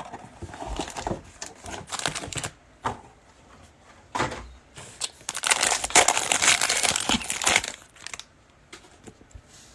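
Plastic-foil wrapper of a trading card pack crinkling and tearing as it is opened and handled. The crinkling is densest and loudest for a couple of seconds past the middle.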